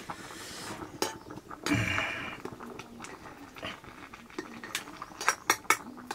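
Steel ladle scraping and clinking against an aluminium cooking pot while rice is stirred, with several sharp clinks near the end. A short call sounds about two seconds in.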